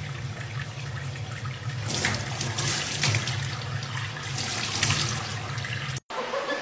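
Tap water running from a faucet into a stainless steel sink, with surges of splashing as a baby chimpanzee bathes under the stream. It cuts off abruptly near the end.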